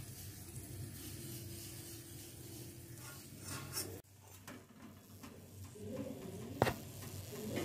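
Faint kitchen handling sounds over a low steady hum: a steel slotted ladle lifts fried paniyaram and lays them on tissue paper, with light scraping and one sharp tap near the end.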